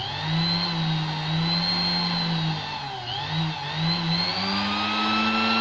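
Small electric motor of a household sewing machine running, its speed set by the foot pedal's carbon contact. The motor whine holds steady, dips in pitch about three seconds in, then rises higher near the end as the pedal is pressed further.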